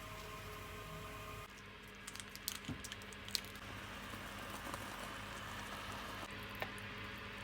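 Food cooking in a pan: faint sizzling with scattered small clicks and ticks. A steady low hum stops about a second and a half in, where the sound changes.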